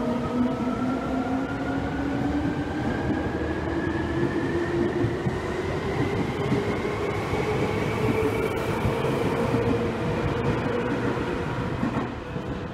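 Seibu 2000 series electric train pulling away, its motors whining in several tones that climb steadily in pitch as it gathers speed, over the rumble of the running train.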